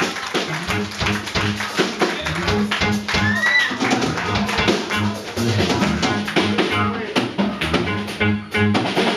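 Live band vamping on a funk groove: drum kit hits over a repeating electric bass line, with electric guitar. A short rising vocal cry comes about three seconds in.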